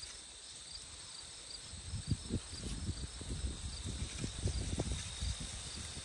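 Soil scraping and rustling as potatoes are dug out of a garden bed, a run of soft irregular scuffs starting about two seconds in. Crickets chirp steadily underneath.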